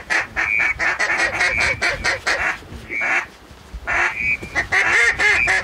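Duck calls blown by hunters: rapid runs of quacks and chuckling strokes, broken by a short pause about three seconds in.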